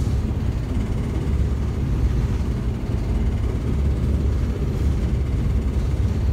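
Daimler Fleetline double-decker bus's diesel engine running with a steady low rumble, heard from inside the bus.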